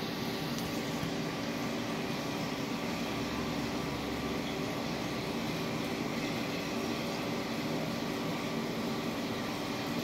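Steady hum of running machinery: several low tones under an even hiss, with no change in pitch or level.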